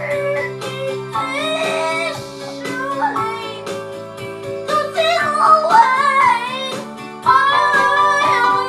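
A child singing an improvised, made-up-as-he-goes song over piano chords, the chords changing about every two seconds.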